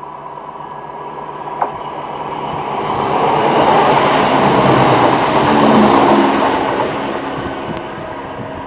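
CrossCountry Class 170 Turbostar diesel multiple unit passing close by: the noise of its engines and wheels on the rails builds, peaks for about three seconds, then fades away.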